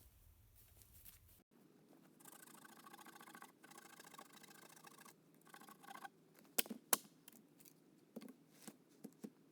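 Red squirrel chattering: a rapid, rattling trill in three bursts lasting a few seconds, followed by a few sharp clicks, two of them loud.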